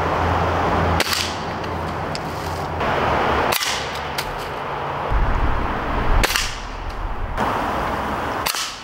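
Stoeger S4000-E break-barrel .22 pellet rifle firing: a few sharp cracks spaced a couple of seconds apart, over a steady loud rushing noise.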